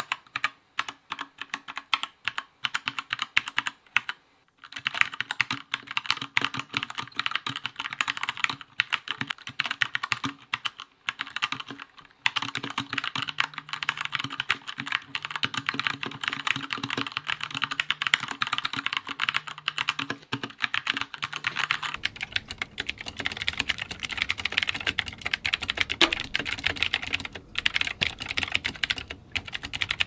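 Typing on Keychron K2 wireless mechanical keyboards, a sound test of rapid key strokes. It is first on the version 2 with brown switches, then on the version 1 with blue switches, with short breaks in the typing about four and twelve seconds in.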